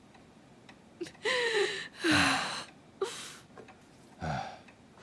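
A person gasping and sighing: about four short breathy sounds, two of them with a voice that falls in pitch.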